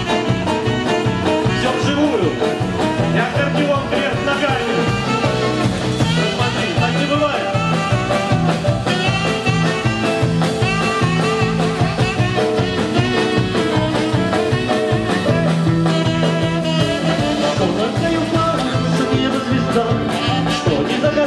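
Live band playing an upbeat swing-style number, from a lineup of saxophone, electric keyboard, accordion, drum kit, congas and bass guitar.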